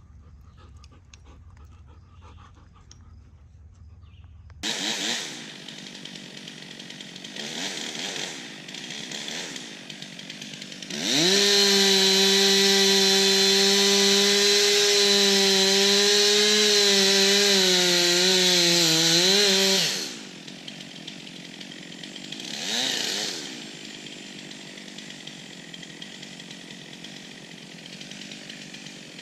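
Two-stroke chainsaw, started up and blipped a few times, then held at full throttle for about nine seconds as it cuts, its pitch sagging and wavering under load near the end, before dropping back to idle with one more blip.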